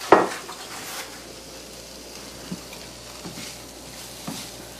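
A sharp knock just at the start, then the faint, steady sizzle of a butter-and-flour-substitute roux cooking in a frying pan, with a few light knocks of a utensil against the pan.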